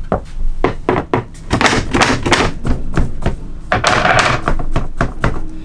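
Hands knocking and pushing on pine tongue-and-groove ceiling boards in their metal channels: a quick, irregular run of knocks and thunks, with a couple of longer rubbing scrapes about a third of the way in and again later.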